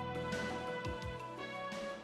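Instrumental background music: sustained melodic notes over occasional low drum beats.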